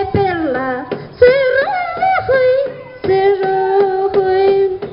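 Two women singing a high-pitched Andean Santiago song in phrases of long held notes, over a steady beat of about three strikes a second.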